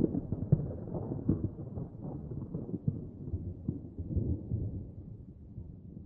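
The tail of a large explosion sound effect: a low rumble with scattered crackles, slowly fading out over several seconds.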